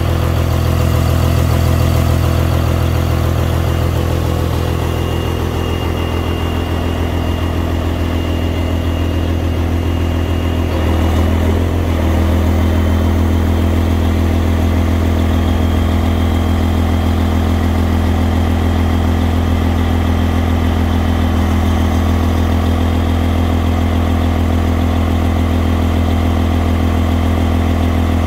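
Mercedes-Benz Actros diesel engine running steadily while powering the Hiab 40TM crane's hydraulics as the boom moves, with a faint high whine over the engine note. About eleven seconds in, the pitch of the running shifts and then holds steady.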